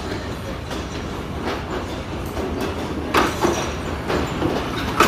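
A Sri Lanka Railways railbus, an Ashok Leyland bus converted to run on rails, passing along the track with a steady low rumble from its engine and wheels. In the second half there are a few sharp clacks as its wheels cross rail joints.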